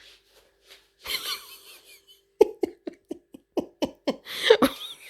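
A person's short vocal bursts, repeated about three times a second from about halfway through, after a brief breathy sound about a second in.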